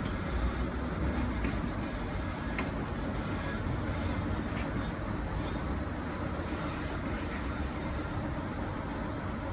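Steady low rumble, with a few faint light clicks.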